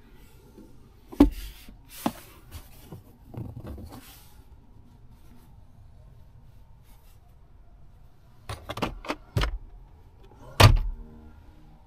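Keys and key fob handled inside a car's cabin: scattered clicks, jingles and knocks, a cluster of them near the end with the loudest knock just before it ends.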